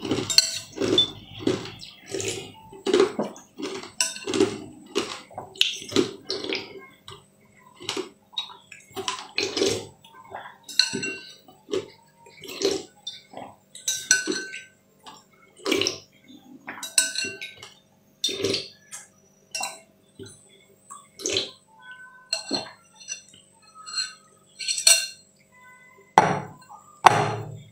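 A spoon clinking and scraping against a glass bowl again and again, about once a second, between wet slurps of the dark liquid being eaten. Two louder dull knocks come near the end.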